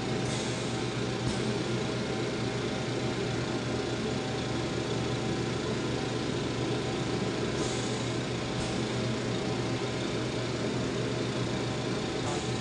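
Steady rushing roar of a glass lampworking torch flame as a bead on a mandrel is heated, with a low steady hum beneath.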